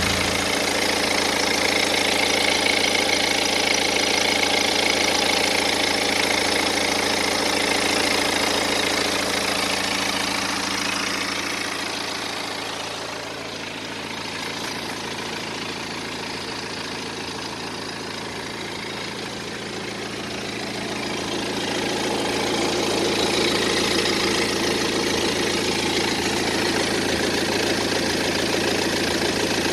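BMW N47 2.0-litre four-cylinder diesel idling with the clattering rattle often blamed on a worn timing chain; on this engine the chain turned out to be fine. The sound grows quieter about a third of the way in and comes back up near two-thirds through.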